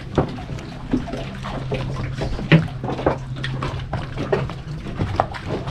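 Water sloshing and splashing in irregular slaps, over a steady low hum.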